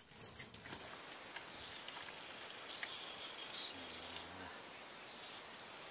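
Insects calling in a steady, high-pitched drone, with a few faint clicks.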